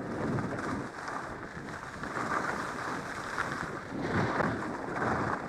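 Wind rushing over the camera's microphone while skiing downhill, mixed with the scrape of skis on hard-packed snow, rising and falling unevenly through the turns.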